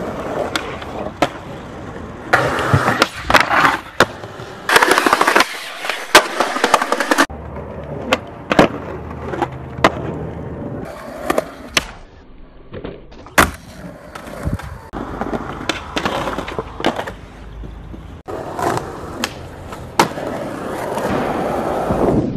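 Skateboard urethane wheels rolling on concrete, broken by sharp pops of the tail and slaps of the board landing, with longer scraping stretches of the board sliding along a ledge. The background changes abruptly several times.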